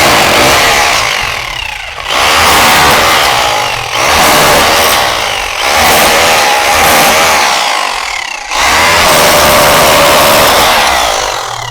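Stanley SHR263K rotary hammer in chisel mode, hammering a flat chisel bit into ceramic wall tile. It runs in five bursts of two to three seconds each, with brief pauses between.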